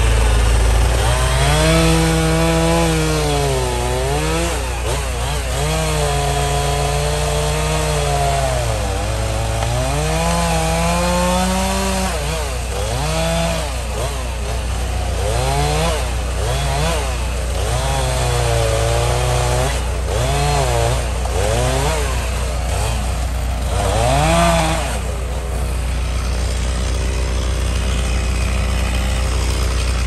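Chainsaw cutting through a fallen pine trunk, its engine pitch dropping as the chain bogs in the cut and rising again as it revs back up, over and over. The revving eases off about 25 seconds in.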